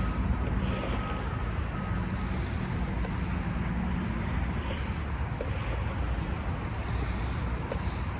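Skateboard wheels rolling on a concrete bowl, a steady rumble as the rider carves up and down the transition practising backside kickturns, with a couple of light knocks partway through.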